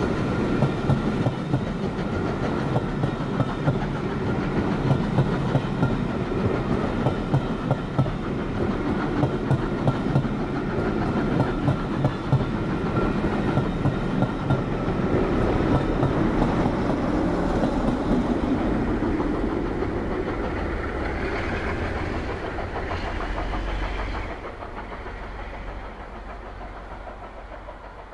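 Passenger coaches rolling past close by, their wheels clacking over the rail joints in a steady run. The diesel locomotive on the rear of the train goes by about three-quarters of the way through with a deeper rumble, then the sound dies away.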